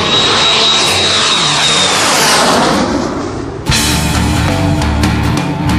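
English Electric Canberra's twin Rolls-Royce Avon turbojets on a low flypast: a loud rushing jet noise with a high whine that sweeps downward in pitch as the aircraft passes. About three and a half seconds in it cuts off abruptly to heavy rock music with electric guitar.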